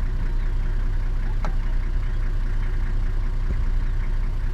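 Safari game-drive vehicle's engine idling steadily while parked, with a single sharp click about a second and a half in.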